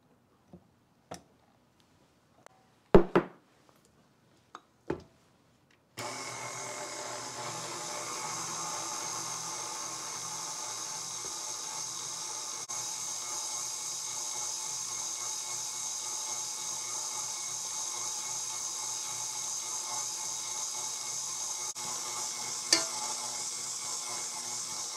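A few knocks in the first few seconds, the loudest about three seconds in. Then, about six seconds in, a KitchenAid Artisan stand mixer starts and runs steadily, kneading bread dough with its dough hook, with a single knock near the end.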